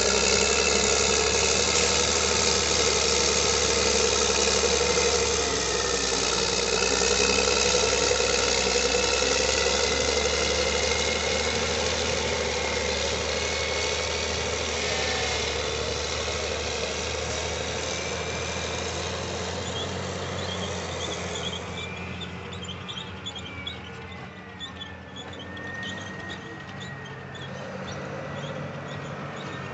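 Caterpillar 623E elevating scraper loading: its diesel engine working under load while the paddle elevator churns dirt up into the bowl, with a whine that slides in pitch. The sound grows fainter over the second half as the scraper pulls away.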